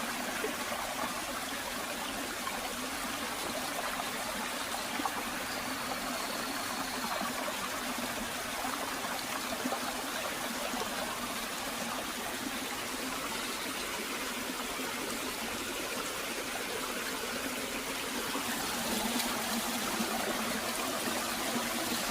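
Water running and trickling over rocks in a small stream or waterfall, a steady, even sound with no breaks.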